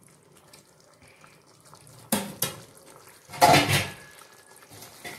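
Metal utensils knocking against a kadai: a sharp clink about two seconds in and a louder clatter about a second later, with a small click near the end.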